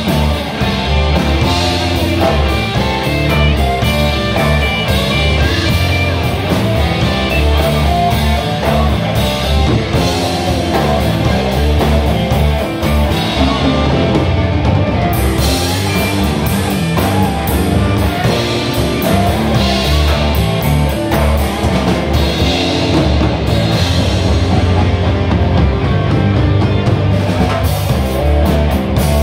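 Drum kit played in a rock groove, with kick and snare hits and crashing cymbals at times, alongside electric guitar playing with the band.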